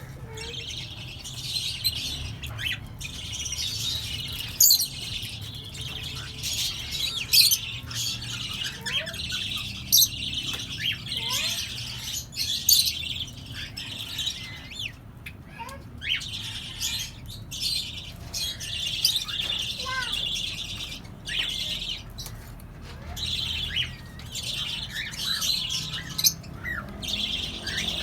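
A mixed flock of Fischer's lovebirds, cockatiels and budgerigars chattering continuously, with frequent sharp squawks standing out above the chatter.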